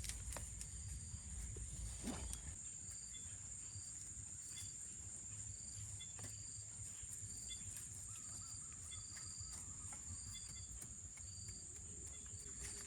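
Insects calling: a steady high buzz with a short chirp repeating about twice a second, plus a few faint clicks and a low rumble underneath.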